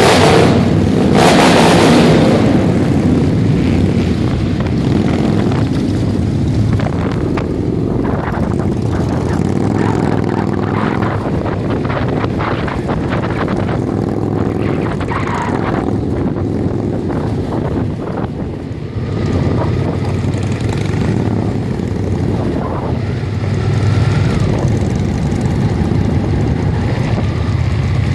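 A group of cruiser motorcycles riding together, their engines running with a steady low rumble, briefly louder about a second or two in, heard from the rider's own bike.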